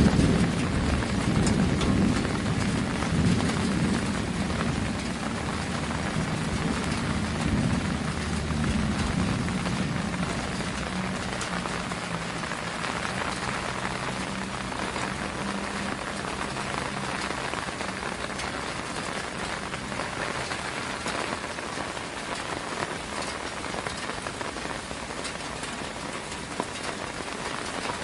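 Steady rain falling on surfaces, with a low rumble of thunder at the start that fades away over the first several seconds.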